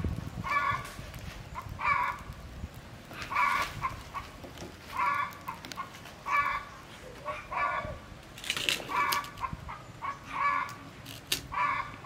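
A chicken calling over and over, one short call about every second and a half. A brief noisy rustle comes a little past the middle.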